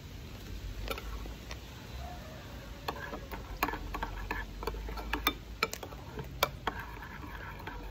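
Metal spoon clinking and scraping in a glass bowl of thick açaí as it is stirred, with close mouth sounds of chewing. The clicks come irregularly and grow denser about three seconds in.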